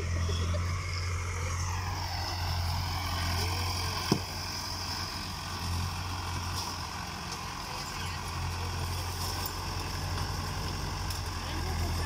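Farm tractor engine running steadily as it pulls a digging implement through the soil of a potato field. One sharp knock comes about four seconds in.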